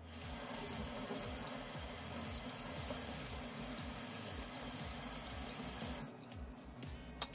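Kitchen tap running into a metal sink while food is rinsed by hand under the stream; the water stops about six seconds in.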